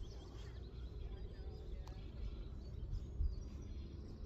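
Low wind rumble on the microphone with small birds chirping faintly, and a single soft knock a little past three seconds in.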